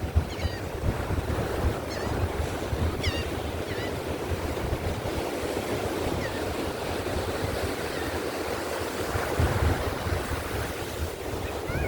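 Ocean surf washing on a beach under strong wind, with gusts buffeting the microphone in a low rumble. A few short, high chirping calls come through faintly now and then.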